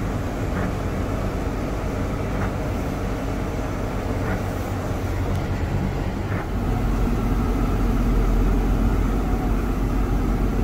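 JCB Fastrac tractor engine running under load, heard from inside the cab while driving through floodwater; the engine gets louder about six and a half seconds in.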